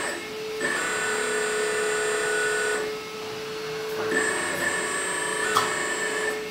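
Hydraulic pump and motor of a 1/14 scale all-metal RC excavator whining steadily while the arm moves. The whine drops away for about a second in the middle, then comes back, with a few light clicks in the second half.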